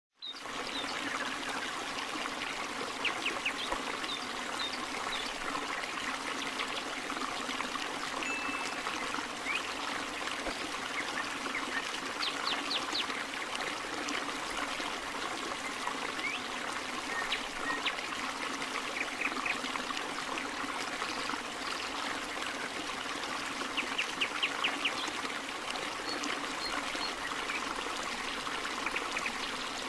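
Stream water trickling steadily, with a few short bursts of bird chirps and trills over it, several quick notes at a time.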